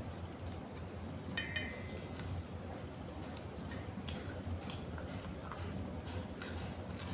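A person eating: scattered small crisp clicks and mouth sounds of chewing, over a low steady hum.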